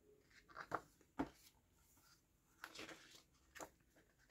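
Faint paper rustles and light taps as the thick pages of a hardcover photobook are handled and turned, a few brief sounds with near silence between them.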